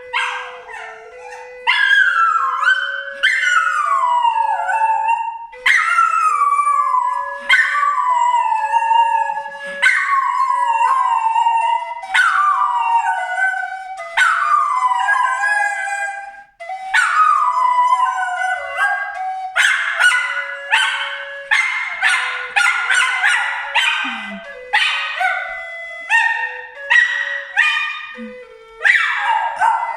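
A dog howling: a long string of falling howls, each about a second long. About two-thirds of the way through they turn into shorter, quicker howls and yips.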